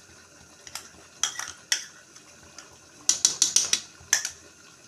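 A spoon clinking and scraping against a small bowl as fresh cream is tipped out of it into the curry: a few scattered taps, then a quick run of about six clicks a little after three seconds in, and one more just after.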